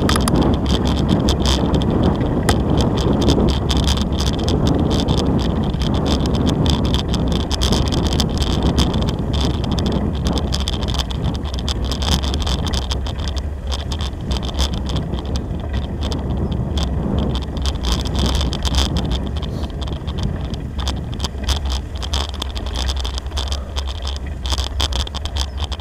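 Bicycle rolling along a gravel-and-dirt track: a steady rumble and crunch of tyres on loose gravel, shot through with many small rattles and clicks, and wind buffeting the microphone.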